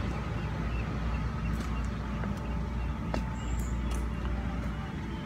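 Steady low outdoor rumble with a few faint clicks and brief high squeaks.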